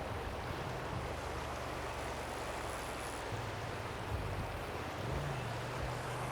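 A Polaris RZR side-by-side's engine running as it drives past, its pitch shifting and climbing near the end, over the steady rush of a river.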